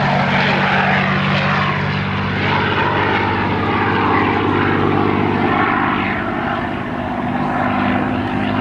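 Propeller-driven aircraft flying a display, its engine running loud under a heavy rush of propeller and air noise; the engine note shifts about two and a half seconds in.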